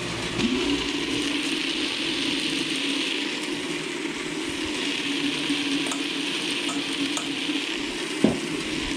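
Star-rolling machine running: a steady motor hum under a continuous grainy hiss of firework stars tumbling in the rotating bucket, with one short knock about eight seconds in.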